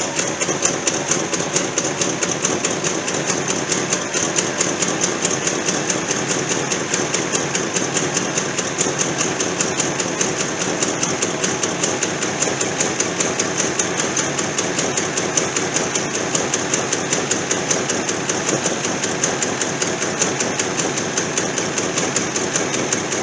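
Carbureted V8 engine idling steadily soon after start-up on a freshly rebuilt four-barrel carburetor, with a fast, even valve-train ticking over the idle.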